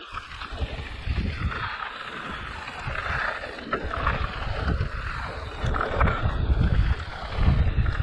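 Wind rumble on the camera microphone and tyre noise over a gravel and dirt trail as an electric mountain bike rides downhill at speed, with short knocks and rattles from the bike over bumps.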